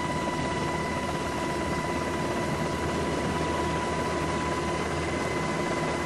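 Steady helicopter engine and rotor noise with a constant high whine, heard from aboard the aircraft.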